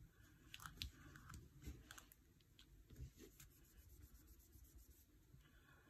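Near silence, with faint scattered ticks and scratches of a pen writing on paper.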